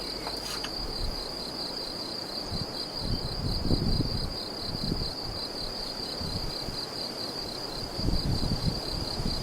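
Crickets trilling steadily, a high, rapidly pulsing chirr that does not stop. Low rumbles come and go beneath it, strongest about three to four seconds in and near the end.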